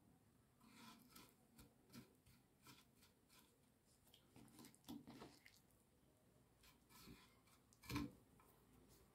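Faint scattered clicks and wet handling sounds as fingers turn a zucchini slice in a ceramic bowl of egg mixture, then a louder brush about eight seconds in as the slice is pressed into breadcrumbs.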